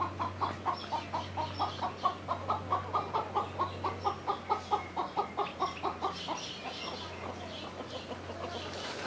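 Chicken clucking in a fast, even run of about five clucks a second, stopping about six seconds in.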